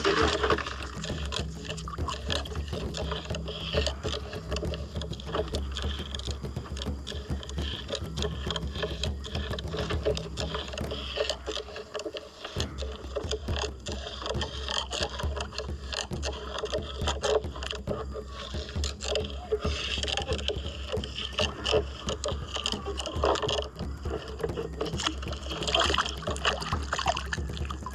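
Water lapping and knocking against the hull of a small fishing boat, with many small clicks and knocks over a steady low rumble.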